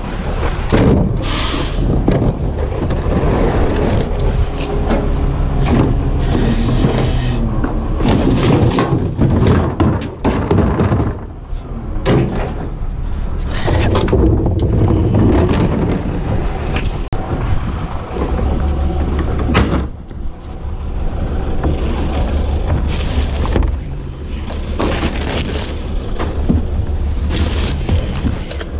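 EZ Pack rear-loader garbage truck running close by with a steady low rumble, under repeated knocks and clatter of plastic wheeled trash carts being handled and emptied into the hopper.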